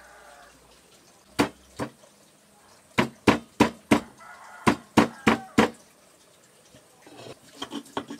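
Stone pestle pounding shallots and garlic in a stone mortar (Javanese cobek and ulekan): sharp stone-on-stone knocks, two about a second and a half in, then two runs of four at about three strokes a second.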